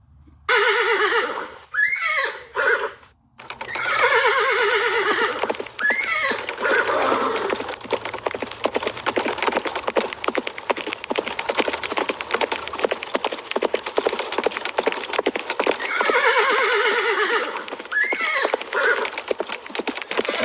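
Horses whinnying: long, quavering neighs with rising and falling pitch in three spells, near the start, a few seconds in and near the end. Between them comes a fast, dense clatter.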